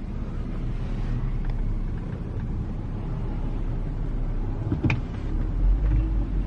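Car engine and road rumble heard from inside the cabin, a steady low drone that grows louder about five and a half seconds in. A single short click sounds about five seconds in.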